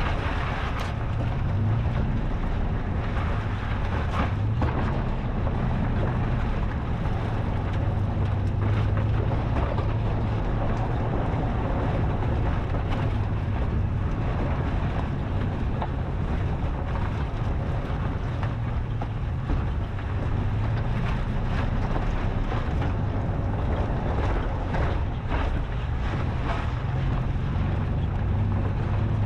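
Toyota FJ Cruiser's 4.0-litre V6 running steadily at low speed on an off-road trail, with wind noise on the microphone and a few knocks near the start.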